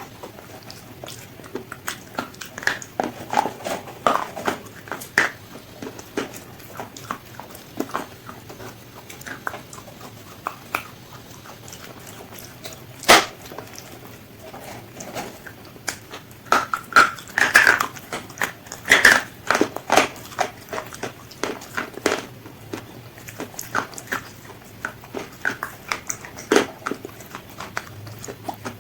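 Crisp fried chicken being bitten and chewed up close: irregular crunches and wet chewing, with the loudest bites about 13 s in and a cluster between 17 and 20 s.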